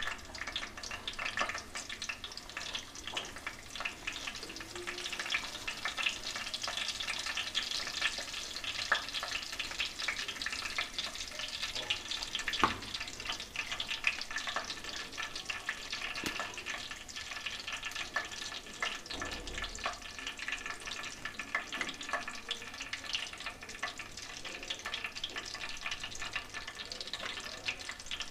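Whole spices (cumin seeds, black cardamom, bay leaves and cinnamon) sizzling in hot desi ghee in a kadhai, a steady dense crackle of small pops: the tempering stage, with the spices frying in the fat.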